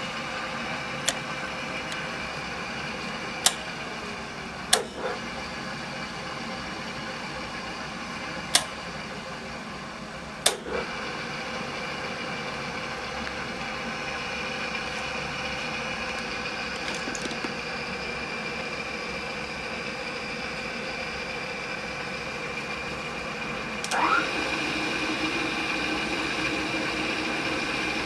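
A machine's electric motor running steadily, with several sharp clicks scattered through the first half and a short louder clatter near the end, after which the running note shifts slightly.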